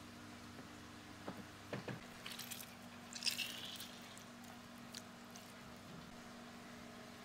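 Lemon squeezed by hand: a few light clicks, then a short wet squelch of juice about three seconds in, over a faint steady hum.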